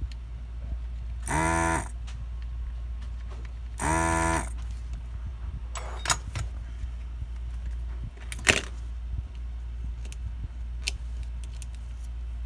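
Electric desoldering gun's vacuum pump running in two short bursts of about half a second each, roughly two and a half seconds apart. Two sharp clicks follow later, the second one the loudest sound.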